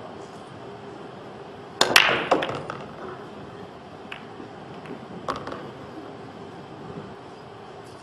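Pool cue tip striking the cue ball, followed at once by a quick run of hard ball-on-ball clacks that die away within a second. A single lighter ball click comes about three seconds later, and another right at the end.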